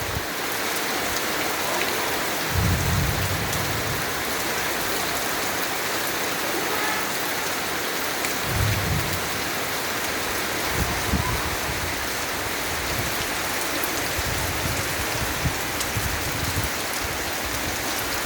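Heavy rain falling steadily in a downpour, with a few short low rumbles in the background.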